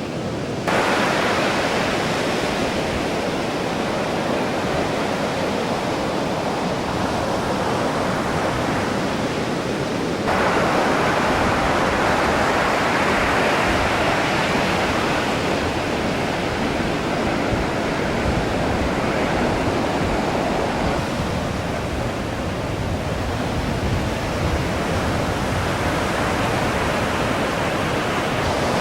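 Steady rushing noise of ocean surf, with wind on the microphone. It jumps louder abruptly about a second in and again about ten seconds in.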